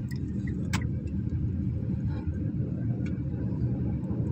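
Steady rumble of road and engine noise inside a moving car's cabin. A sharp click comes under a second in and a fainter one about three seconds in.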